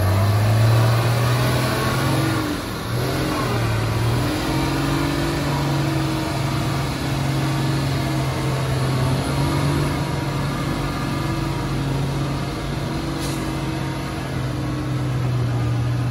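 Heavy diesel engine running at a steady, raised speed, its note dipping briefly about three seconds in before settling again.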